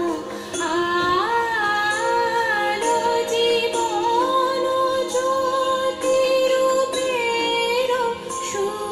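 Recorded Bengali Agomoni song: a woman sings slow, long-held notes that glide between pitches over a steady drone.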